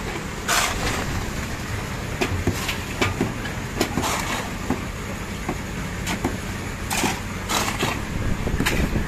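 Steel shovels scraping and scooping wet concrete mix off a concrete floor, in short irregular strokes, over a steady engine hum.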